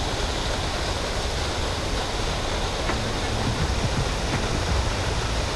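Steady rush of fast-flowing mountain creek water.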